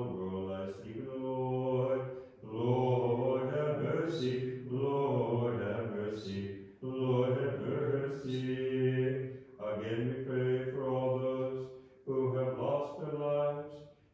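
Orthodox Vespers chant: a low male voice chanting in phrases of a few seconds, with short breaks for breath between them.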